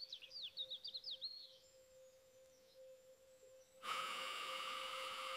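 AI-generated nature soundtrack: a quick run of high bird chirps for the first second and a half, then near quiet over a faint steady hum. About four seconds in, a sustained ambient drone of layered, bell-like tones swells in and holds.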